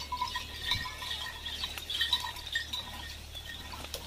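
Small metal bells on working bullocks jingling in an uneven rhythm as the animals walk, pulling a loaded sugarcane cart.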